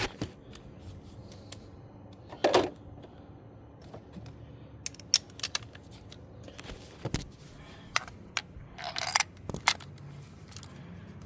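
Scattered metallic clinks and knocks of hand tools, a socket, extension and spark-plug swivel socket being handled and fitted together, with a louder clatter about two and a half seconds in.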